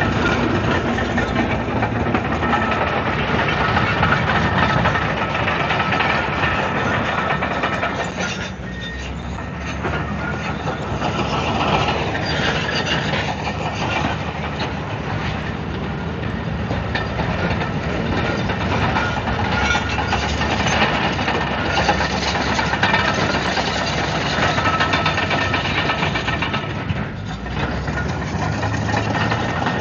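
Komatsu D155AX-7 crawler bulldozer working: its diesel engine runs under load with a continuous metallic clatter of the steel tracks. The sound eases off briefly twice, about a third of the way in and near the end.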